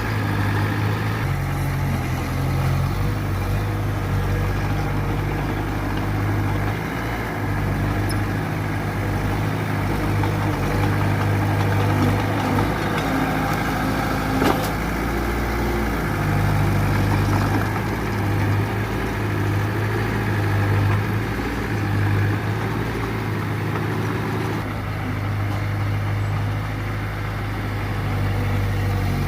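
Diesel engine of heavy earthmoving machinery running steadily, its note stepping up and down a few times as the engine speed changes. A single sharp click comes about halfway through.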